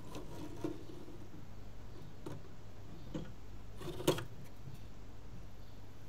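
A hard drive on its metal sled being slid back into a Mac Pro 2006 drive bay: a few light clicks and knocks of metal on metal, the sharpest about four seconds in, over a low steady hum.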